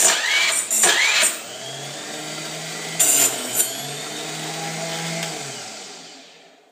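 Small electric chop saw running, with loud screechy bursts as its blade cuts the excess neck off a brass rifle case, once in the first second or so and again briefly about three seconds in. Its motor then winds down to a stop.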